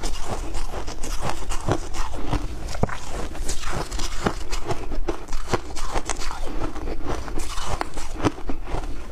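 Shaved ice being chewed close to the microphone: a dense, continuous run of crisp crunches, several a second.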